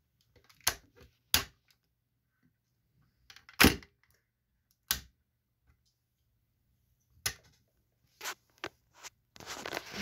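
Sharp clicks and knocks from a hand handling a model lowrider car and swinging its door open: about seven separate clicks, the loudest a little over a second in and about three and a half seconds in, then a rustle of handling near the end.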